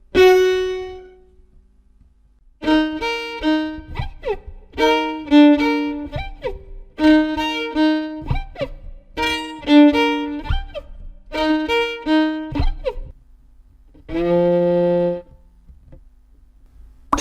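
Violin playing: one fading note at the start, then the same short phrase of quick notes repeated over and over, with quick pitch slides between the groups, and a single held note near the end.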